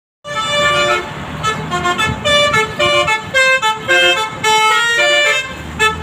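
Indonesian bus telolet horn, a multi-tone air horn on a tour bus, playing a quick melody of short held notes that starts about a quarter second in, over road traffic noise.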